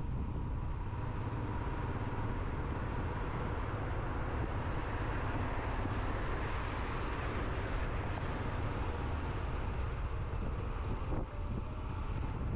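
Motorcycle on the move, with steady wind rush on the microphone over engine and road noise. There is a brief dip near the end.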